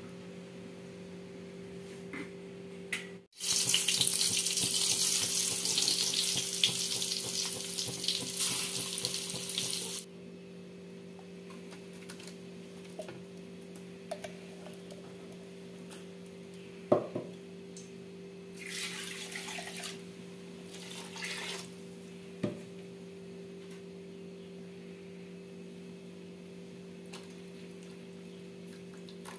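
Cooking sounds from a steel pot over a low steady hum. A loud hissing rush starts suddenly a few seconds in and cuts off about six seconds later. Later come two short rushes and two sharp knocks of a metal vessel.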